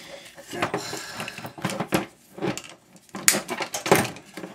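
Irregular metal knocks, clicks and clatter from hand tools working on a house fan's electric motor as it is taken apart.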